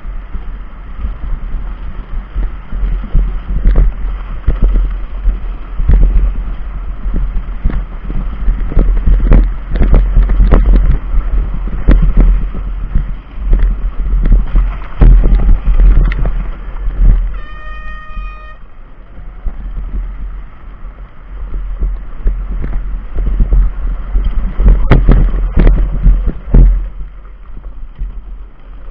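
Wind buffeting the microphone over the rumble and rattle of a billy cart's small tyres rolling fast down a rough dirt track, with frequent bumps and knocks. About two-thirds of the way through, a brief high pitched tone sounds for about a second.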